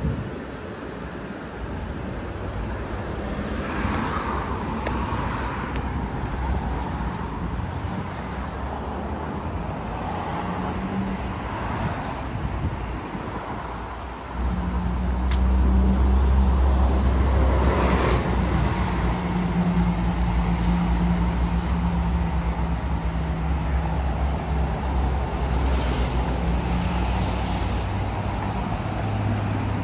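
City street traffic. About halfway through, a large road vehicle's engine, bus or truck size, starts running loud and close, a low steady drone that then holds.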